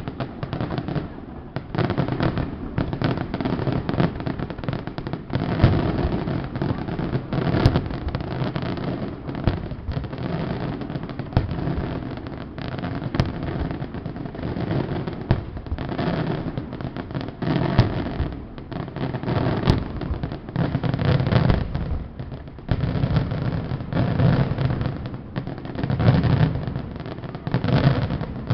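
Pyrotechnic fireworks display: a dense, unbroken barrage of bangs and crackles, shells going off in rapid succession.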